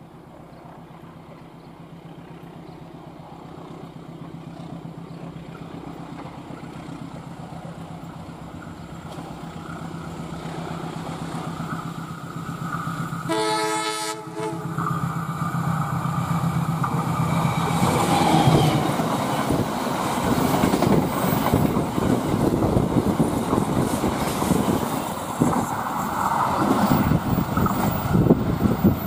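Diesel locomotive-hauled train approaching at speed, its engine drone growing steadily louder. Near the middle the locomotive horn sounds one blast of about a second and a half. The locomotive and wagons then pass close by with loud wheel and wagon clatter on the rails.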